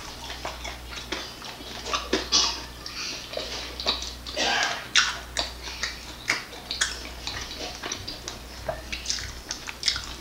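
Close-up chewing of a barbecue chicken wing dipped in ranch, with irregular wet mouth clicks and lip smacks. A low steady hum runs underneath.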